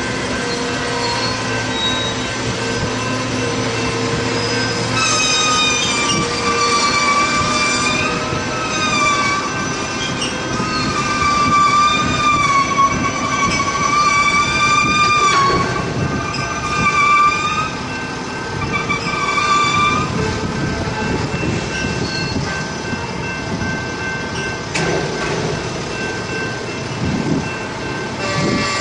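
Loaded rail train of flatcars carrying long welded rail rolling slowly past, the steel wheels squealing in wavering high tones from about five seconds in until about twenty seconds in, over the steady rumble of the cars.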